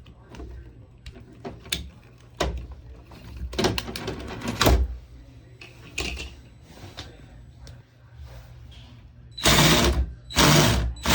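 Small electric motor of a LEGO Technic RC snowmobile running in short spurts, with scattered clicks and rattles of the plastic drive, then two loud rushes of noise near the end.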